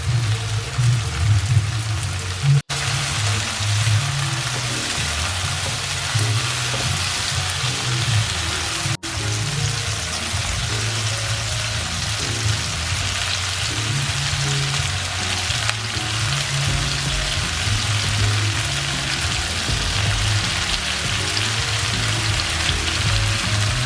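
Food sizzling steadily in a hot pan, over background music with a low bass line; the sound breaks off for an instant twice at edit cuts.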